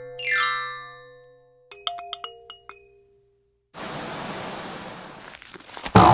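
A string of cartoon sound effects: a rising springy glide just after the start, a run of tinkling chime-like pings, then after a brief silence a steady hiss of noise that slowly fades.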